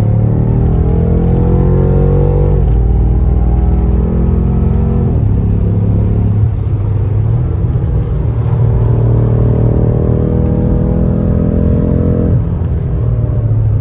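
BMW M5 Competition's twin-turbo V8 heard from inside the cabin, accelerating hard. The pitch climbs and then drops sharply at each upshift, several times.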